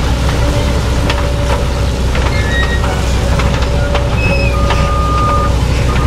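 Grimme Ventor 4150 self-propelled four-row potato harvester working a field: a loud, steady engine and machinery drone with scattered clicks and rattles, a few brief squeaks, and one short whistle-like squeal about five seconds in.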